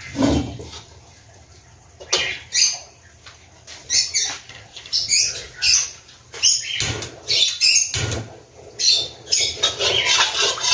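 Small birds chirping in many short, high calls, with a few low clunks of a wok and pot lid being handled on a gas stove.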